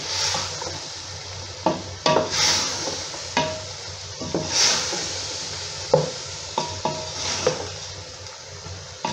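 Beef, chopped tomatoes and spices sizzling in a metal pot while a black spatula stirs them. There are swishing scrapes along the pot several times and short sharp knocks of the spatula against the metal: the masala is being fried until the tomatoes soften.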